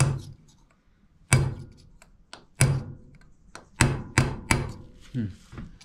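Small hammer striking a steel tool held against the pump-drive key on a Borg Warner Velvet Drive transmission's input shaft, tapping to drive the key out. There are six sharp metal-on-metal strikes, each ringing briefly. The first three are spaced about a second apart and the last three come in quick succession.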